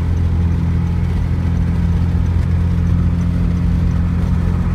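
Steady low rumble of road and engine noise inside a car's cabin cruising at highway speed.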